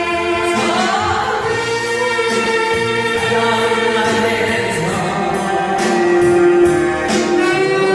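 A choir singing gospel music, with long held notes.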